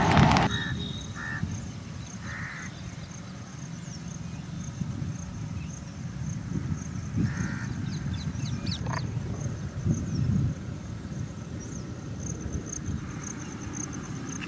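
Crows cawing, four short caws spread over the stretch, over a steady pulsing high insect chirr and a low wind rumble. A passing train's noise cuts off about half a second in.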